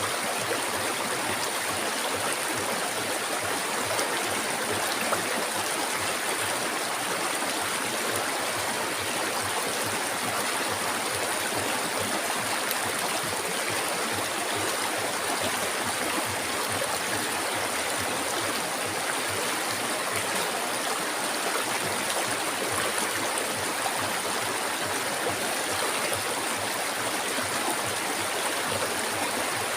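River water flowing steadily over rocks, a constant rushing and gurgling with no pause or change.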